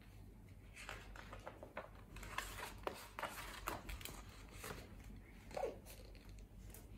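Faint rustling and soft crinkles of a picture book's paper pages being handled and turned, in scattered short bursts over a low steady hum.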